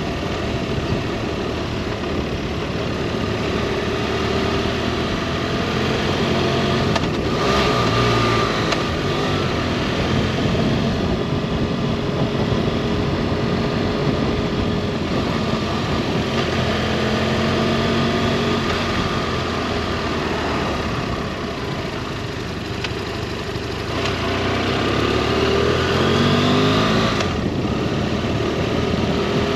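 Motorcycle engine running at road speed under a steady rush of wind noise. Near the end the engine note climbs as the bike accelerates.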